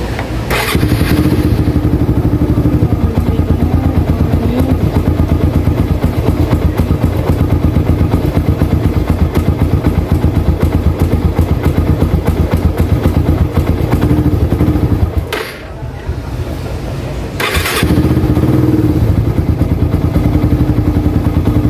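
Motorcycle engine started on a newly fitted Xtreme battery and idling with a steady pulsing beat. About fifteen seconds in it dies away, and a couple of seconds later it is started again and idles on, showing that the new battery starts the bike.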